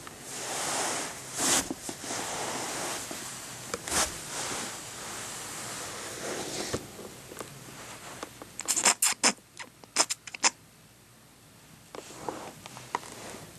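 A fabric finger puppet and the hand wearing it scuffing and brushing across carpet. A quick run of sharp clicks comes about nine to ten seconds in.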